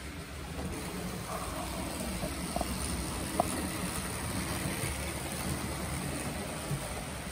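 Rivarossi HO-scale model steam locomotive (a Southern Mikado) running with a train of coaches: a steady motor whir and wheel rumble on the track, the motor noise the owner calls usual for Rivarossi. A single sharp click about three and a half seconds in.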